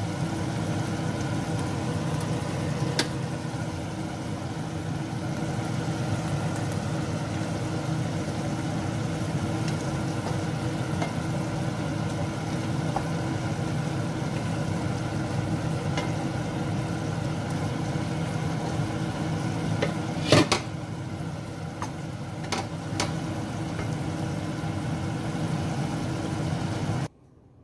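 Beef stew with bell peppers sizzling as it simmers in a nonstick pan, over a steady low hum, with a few sharp knocks of a wooden spatula against the pan while it is stirred, the loudest about 20 seconds in. The sound cuts off about a second before the end.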